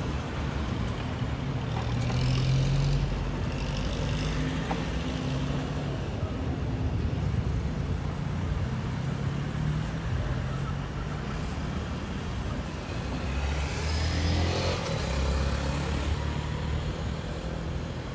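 Steady low rumble of road traffic with engine tones, and a vehicle speeding up about three-quarters of the way through.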